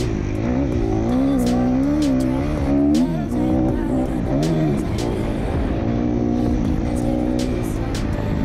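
Kawasaki KX250F single-cylinder four-stroke dirt bike engine being ridden hard, its revs rising and falling over and over, with sharp knocks now and then.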